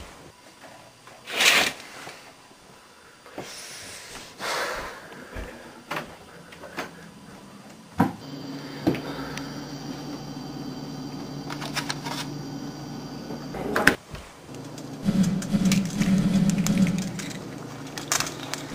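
Household handling noises: a few thumps and rustles, then a steady low hum while a refrigerator stands open, ended by a loud thump about three-quarters of the way in as the door shuts. Near the end a louder, rough low sound with crackles sets in.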